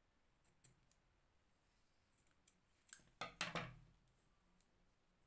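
Scissors snipping woollen yarn: a few faint clicks in the first second, then a short cluster of louder snips and knocks about three seconds in.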